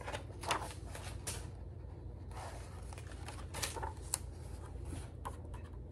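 Pages of a large hardcover picture book being turned and handled: several short dry paper rustles and flaps over a low steady hum.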